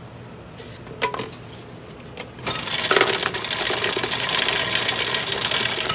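A single clack about a second in, then a fountain-drink machine's ice dispenser dropping ice into a foam cup, a loud clatter for about three seconds that cuts off suddenly.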